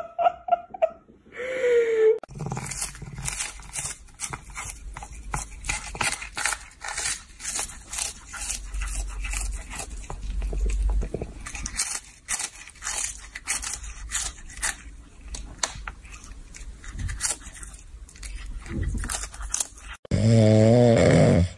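A cat crunching and chewing a crisp dried fish treat held to its mouth: a long run of sharp, rapid crunches. In the last second and a half, a dog snores loudly.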